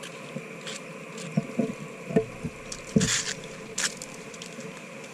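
Footsteps and irregular light knocks of someone walking on a concrete path, with a couple of short scuffs about three seconds in, over a steady faint outdoor background.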